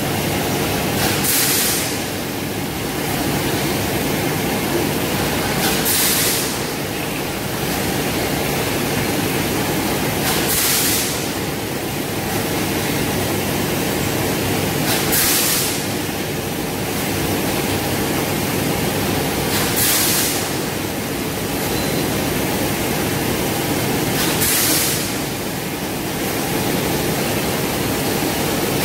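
Steady hum of running factory machinery, with a short burst of hissing air that repeats about every four and a half seconds, six times.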